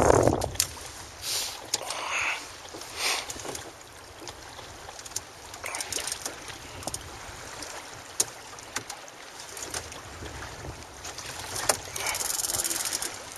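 Water lapping and slapping against the hull of a small drifting boat, with wind on the microphone and scattered sharp knocks. The sound swells into a louder rush about twelve seconds in.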